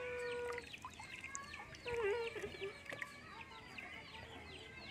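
Chicks peeping over and over in short, high notes that fall in pitch, several a second. A held, steady call ends about half a second in, and a lower wavering call comes about two seconds in.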